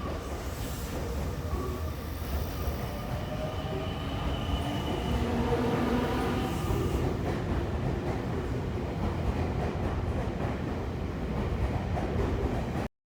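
Train running with a steady low rumble, a whine rising over it for a few seconds near the middle; the sound cuts off suddenly near the end.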